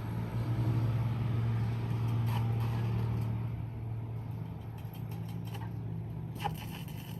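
A motor or engine running with a steady low hum, a little louder in the first few seconds and then easing off, with a few faint clicks.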